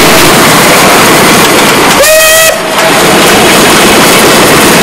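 Narrow-gauge 0-6-2 tank steam locomotive's whistle gives one short blast about two seconds in. Under it is loud, steady rushing noise, recorded from a moving vehicle running alongside.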